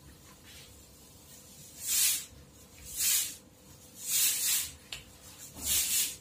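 Four short bursts of spray hissing from an aerosol can, about a second apart, the third one longest.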